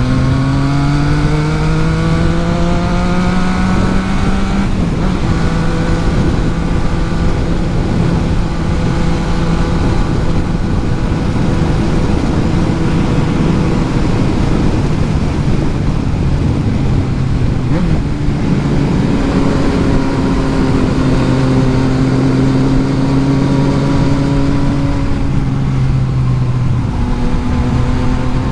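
Yamaha MT-09's three-cylinder engine under way, climbing in pitch as it pulls away over the first few seconds, then holding a steady note. The pitch drops about eighteen seconds in and dips briefly near the end. A steady rush of wind noise runs underneath.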